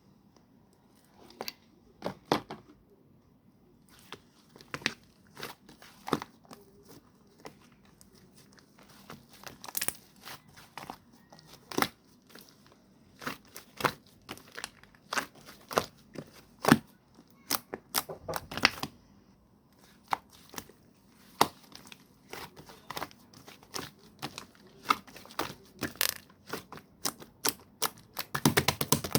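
Clay slime being kneaded and stretched by hand, giving irregular sticky pops and crackles, with a quick run of clicks near the end.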